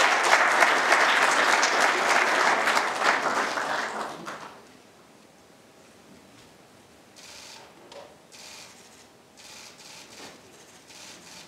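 Audience applauding, which dies away after about four seconds, leaving only faint rustling.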